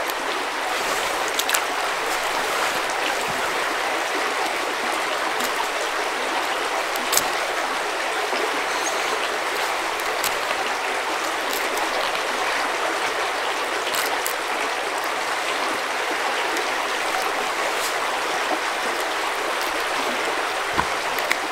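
A creek running with a steady rushing sound, with a few faint clicks now and then.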